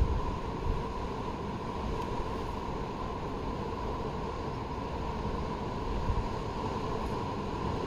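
Wind blowing across the phone's microphone outdoors: a steady rumbling rush with a couple of brief gusts.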